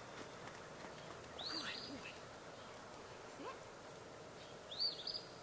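A bird singing a short phrase of high arched notes, twice, about three seconds apart.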